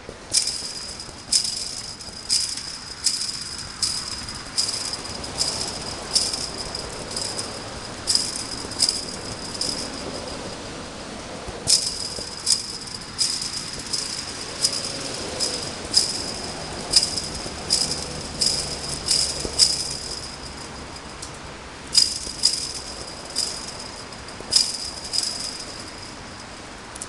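Chain-link fence rattling and jangling each time it is kicked, in runs of sharp metallic strikes about one to two a second, with short pauses twice.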